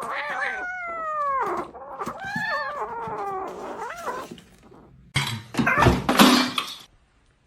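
Domestic cat meowing: several drawn-out calls, most sliding down in pitch, over the first four seconds or so. About five seconds in comes a loud, noisy burst lasting under two seconds, then the sound cuts off.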